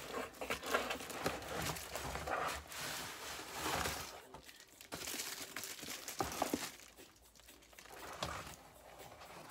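Cardboard shipping box being handled and opened, its flaps rubbing and scraping in irregular strokes, and the plastic shrink-wrap on the box inside crinkling as it is lifted out.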